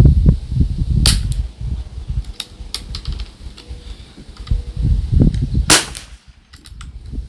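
Sharp crack of a .22 rimfire shot from an Anschutz 1761 bolt-action rifle, with a second sharp report near the end and lighter metallic clicks from handling the action between them, over low rumble on the microphone.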